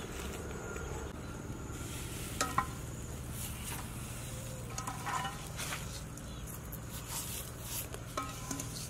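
Whole fish handled on a wire grill rack over a charcoal stove: a few light metal clinks with short rings, about two and a half seconds in, around five seconds in and near the end, over a faint steady sizzle.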